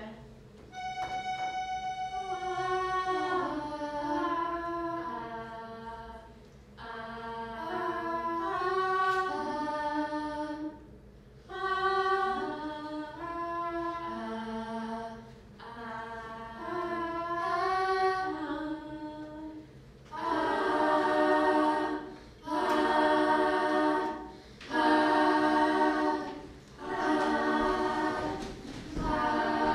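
A girl's solo voice singing an unaccompanied Gaelic song melody in short phrases, opening on one brief held note. About twenty seconds in, a group of girls' voices takes over in short, even chanted phrases about every two seconds.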